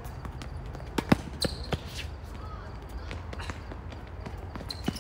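Tennis ball struck by a racket and bouncing on a hard court during a rally: a cluster of sharp hits and bounces about a second in, the loudest among them, and another knock near the end.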